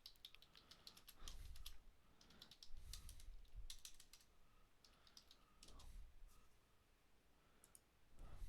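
Faint computer keyboard typing and clicking in short, irregular clusters of keystrokes.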